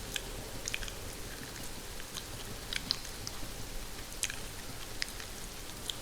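Close-miked mouth chewing on hair, heard as scattered small wet clicks and crackles, over a steady hiss of rain falling on a greenhouse roof.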